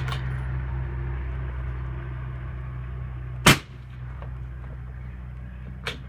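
A single rifle shot through a 7-inch Thunder Beast Ultra suppressor on a 6.5 Creedmoor, about three and a half seconds in. It is one short, sharp report that dies away quickly, measured at about 130½ dB at the shooter's ear.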